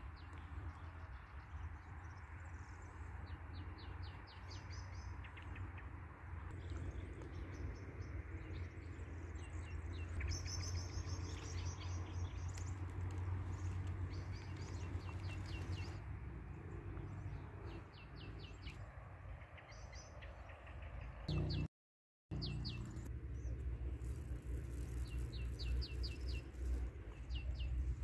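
Small wild birds chirping and trilling in rapid runs of short high notes, over a steady low rumble.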